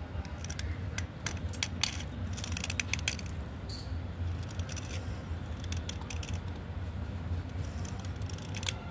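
A small metal blade scraping a wet slate pencil, short crisp scratchy strokes coming in irregular clusters as shavings come off, over a low steady hum.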